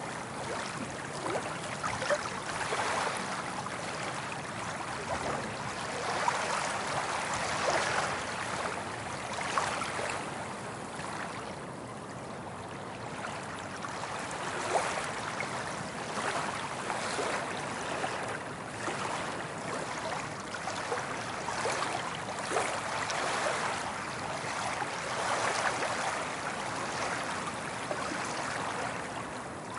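Soft ocean waves rolling onto a beach, each one swelling and washing in, then easing off, every few seconds.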